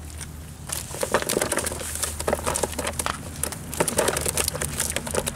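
Irregular rustling, clicking and slapping from about a second in, as live fish are worked free of a nylon cast net and dropped into a plastic tub, where they flap against the sides.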